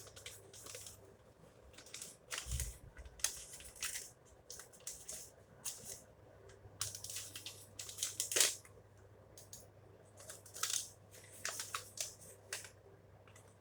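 Packaging being handled and torn open: irregular rustles, tears and scrapes, with a low thump about two and a half seconds in.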